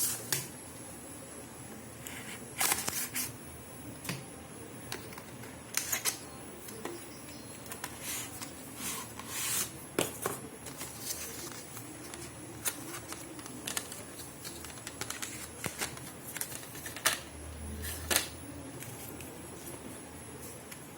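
Cardboard and paper packaging being handled: scattered sharp clicks, taps and short rustles as a small accessory box is opened and its contents are pulled out.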